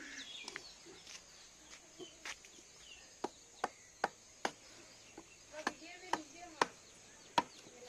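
Hand hammer knocking on wood in sharp, separate strikes: a quick run of four a little past three seconds in, and more spaced out after.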